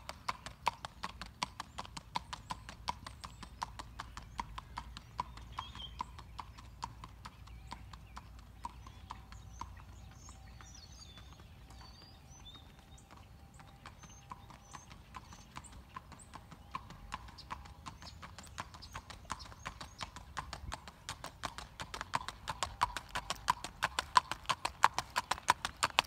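Hoofbeats of a gaited horse moving at a quick, even pace. They fade through the middle as the horse moves off, then grow loud again near the end as it comes back close.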